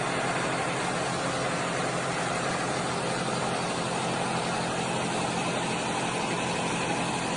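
A vehicle engine running steadily at an even, unchanging pitch, with a constant hiss over it.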